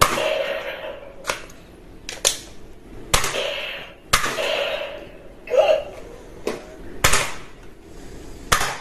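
Toy gun firing: about eight sharp, shot-like snaps, roughly one a second, some followed by a brief hiss.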